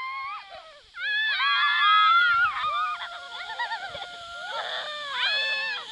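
Children shrieking with excitement as they ride a snow tube downhill: several high voices at once in long, gliding squeals. The squeals are loudest from about one to two and a half seconds in, and a second burst comes near the end.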